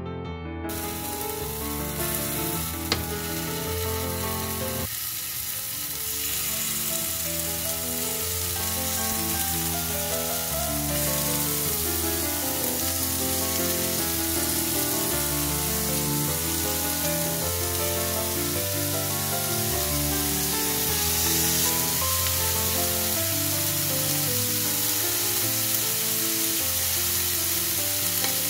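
Raw chicken pieces sizzling and frying in a very hot nonstick pan as they are laid in, with a single sharp tap about three seconds in. Background music plays underneath.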